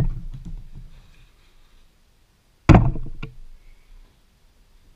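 Knocks of wooden battens and board being set down on a plywood panel: a sharp knock at the start, then a heavier thunk about two and a half seconds in, followed closely by a lighter tap.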